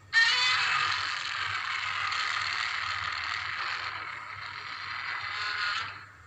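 Godzilla roar sound effect from the 1984 film: one long, rasping roar that starts suddenly, holds for about six seconds and then fades out.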